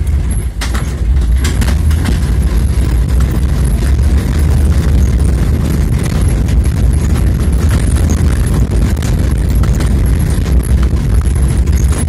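Ride noise from a vehicle driving along a town street: a steady low rumble with wind buffeting the microphone, and scattered knocks and rattles.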